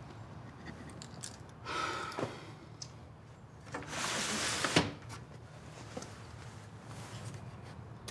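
A window sash sliding shut with a scrape about four seconds in, ending in a sharp knock as it closes. A shorter, softer rustle comes about two seconds in.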